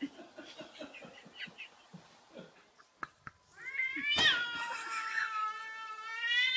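Domestic cat's long, drawn-out defensive yowl that begins about three and a half seconds in, rising sharply and then settling into a held, wavering tone. It is preceded by a few soft clicks and scuffles.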